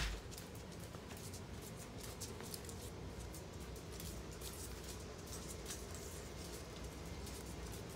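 Small, faint, irregular clicks of a corgi's claws on a concrete floor as it walks, with one sharper knock right at the start.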